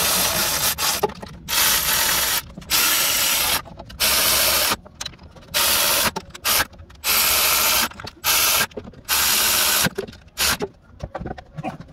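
Cordless electric ratchet spinning bolts in about nine short bursts of whirring, ending about ten seconds in.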